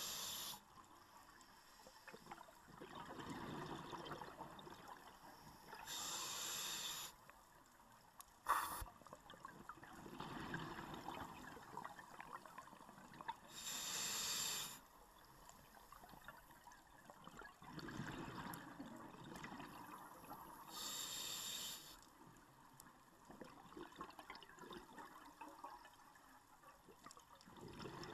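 Scuba diver breathing through a regulator underwater: a hiss on each inhale about every seven seconds, with bubbly exhales in between. One sharp knock about eight and a half seconds in.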